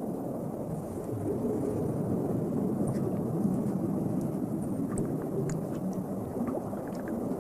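Steady low underwater rumble, with a few faint ticks in the middle.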